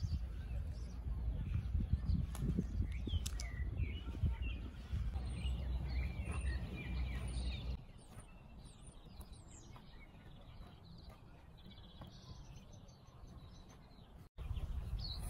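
Small birds chirping and calling in short, quick rising and falling notes over a low outdoor rumble that drops away about halfway through.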